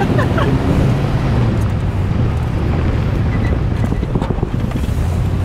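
Armored Chevrolet Suburban driving fast on a dirt road, heard from inside the cabin: a steady low engine hum under tire and road rumble. One tire has been shot flat and is running on its run-flat insert.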